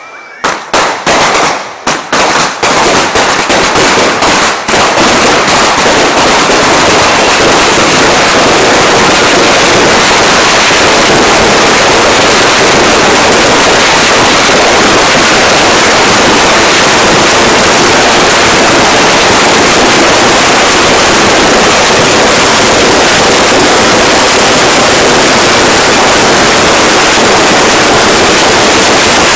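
Backyard fireworks finale: separate sharp bangs in the first few seconds come faster and faster, then merge into a continuous, very loud barrage of explosions with no gaps.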